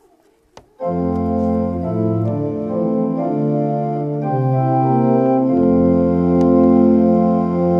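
Organ playing the introduction to a hymn tune in sustained chords that change every second or so. It starts about a second in, after a short click.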